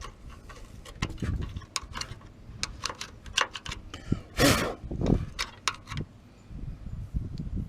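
Metal clicks, clinks and knocks of hand tools working on car parts as a part is taken off, with dull thuds and one louder short rasp about four and a half seconds in.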